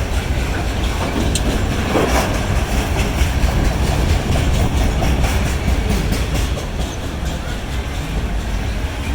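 Freight train of loaded container well cars rolling past: steady rumble and clatter of steel wheels on the rails.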